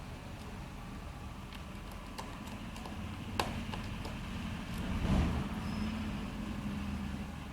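Scattered small clicks and taps of a screwdriver working the screws of a laptop's back cover, over a steady low rumble that swells briefly about five seconds in.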